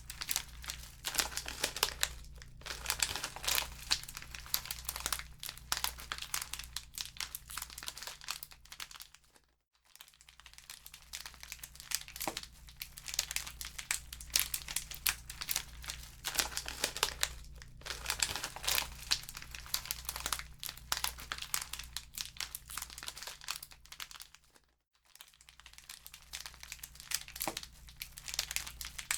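Wood fire in a fireplace crackling and popping with dense, irregular snaps over a steady low hum. The crackle dips briefly almost to silence twice, about ten and twenty-five seconds in.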